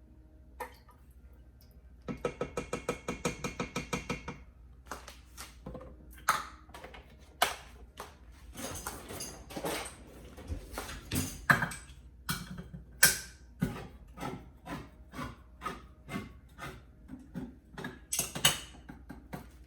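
Kitchen handling noise: a quick, even rattle of about six strokes a second for a couple of seconds, then a long run of irregular clicks, taps and scrapes of metal utensils or cookware.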